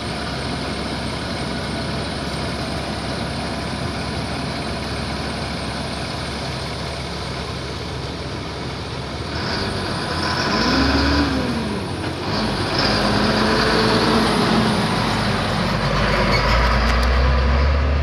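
Sysco delivery truck's diesel engine running steadily close by. It grows louder about halfway through, and the engine's pitch rises and falls before a heavier low rumble near the end.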